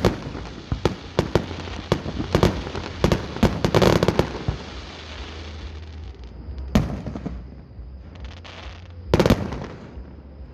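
Aerial fireworks going off: a rapid run of bangs and crackling for the first four seconds or so. Then sparser single loud booms, one about seven seconds in and a close double boom near nine seconds.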